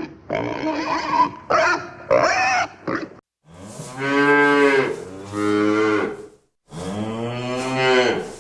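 Cattle mooing: three long, drawn-out moos in the second half, preceded by a jumble of short, irregular sounds.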